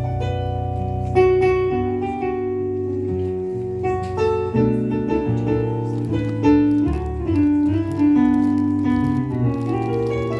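Solo jazz playing on a Yamaha digital stage piano: chords that change every second or so over held low bass notes.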